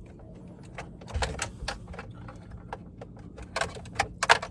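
Sharp plastic clicks and knocks as wiring-harness connectors are released with a pick tool and pulled off the back of a pickup's AC control panel. Several come in quick succession, the loudest near the end.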